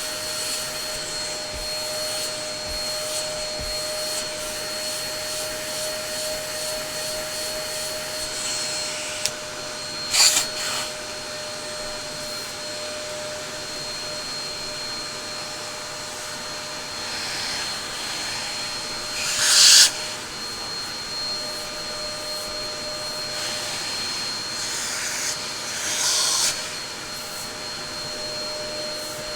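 Upright vacuum cleaner running steadily, a rushing of air with a constant motor whine. Three times it briefly swells into a louder hiss of air, the loudest about two-thirds of the way through.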